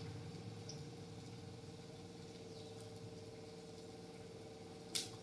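Faint stirring of curdling milk in a pan with a silicone spatula, as the vinegar splits it into curds and whey, over a steady low hum. One sharp click near the end.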